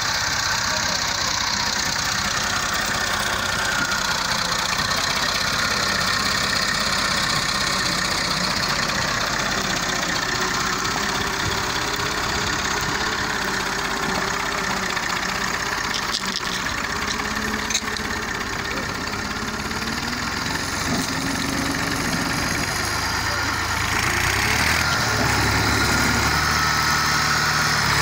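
Massey Ferguson tractor's diesel engine running steadily under load while it pulls a loaded trolley through water and up a bank. It grows louder and deeper near the end.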